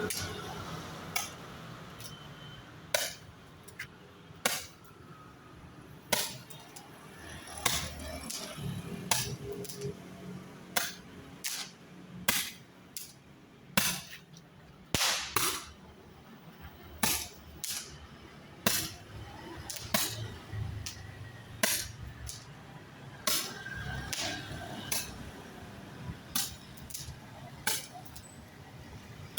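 Magical Shoot 30-shot firework cake firing its tubes one after another, a sharp pop roughly every second, sometimes two close together.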